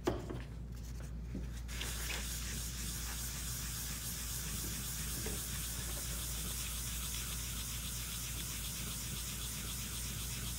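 Hand scrubbing of a wet stone tile with a sponge applicator holding the second-step polishing pad, grinding out an etch mark: a steady, even scratchy rubbing that starts about two seconds in, after a brief knock at the very start.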